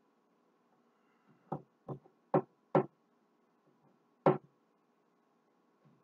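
Five or so sharp knocks and taps of a clear plastic refrigerator crisper drawer being handled, four in quick succession about a second and a half in and one more about four seconds in.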